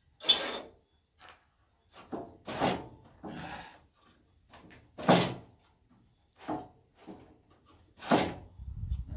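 A series of separate knocks and thuds, about ten, the loudest a third of a second in and about five seconds in; a low steady rumble begins near the end.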